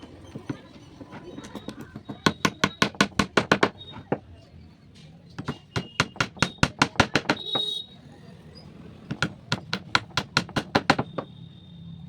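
Rapid hammering on wood: three runs of sharp knocks, each run about two seconds long at roughly seven strikes a second, with short pauses between them.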